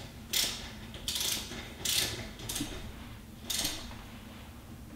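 Torque wrench with a 5/32 hex bit ratcheting as a bolt on a steering stabilizer clamp is tightened: about five short spells of ratchet clicks, roughly one a second, on the wrench's back-strokes.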